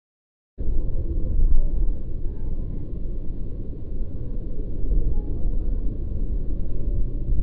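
Steady low rumble of road and engine noise heard inside a car's cabin while it drives on a freeway, starting abruptly about half a second in after silence.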